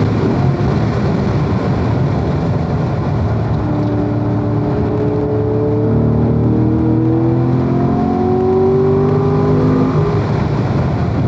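Corvette engine heard from onboard at speed on a race track, its note climbing in pitch under acceleration from about three seconds in until near the end, over steady wind and road noise.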